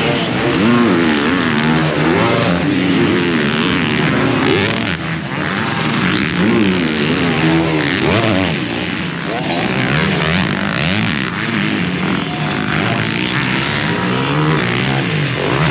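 Several 250cc motocross bikes racing together, their engines revving up and dropping off again and again as they take the jumps.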